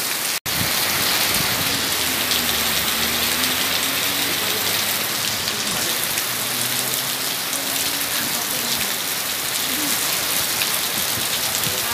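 Heavy tropical downpour falling steadily on paved ground, a dense even hiss of rain. The sound drops out for an instant about half a second in.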